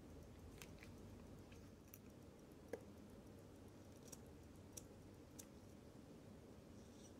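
Near silence broken by a few faint, irregular small metallic clicks: steel tweezers working the click and ratchet wheel of a vintage Ricoh automatic watch movement to let down the mainspring.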